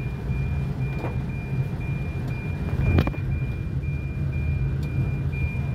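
Car running on a wet road, heard from inside the cabin, with a steady low engine-and-road rumble. Three knocks come about two seconds apart, the loudest about halfway through, and a faint high beep repeats about twice a second.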